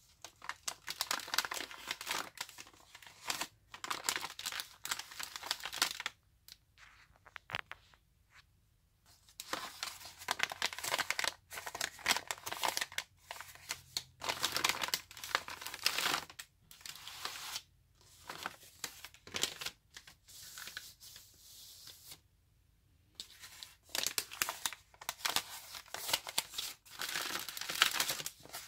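Coffee-dyed, oven-dried paper envelopes handled and rubbed by hand, crinkling and crackling in repeated bursts. The rustling stops for a few seconds twice, once about six seconds in and again a little after twenty seconds.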